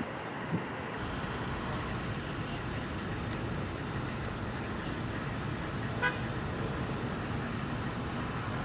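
Steady outdoor background rumble, with a single short pitched toot about six seconds in.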